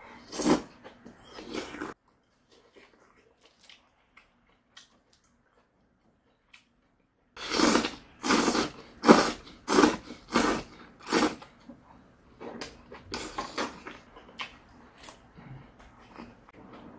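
Close-up eating sounds: slurping up a mouthful of soft siraegi (dried radish greens) from doenjang soup in a run of about six loud slurps about halfway through, then quieter chewing. Nearly silent for a few seconds before the slurps.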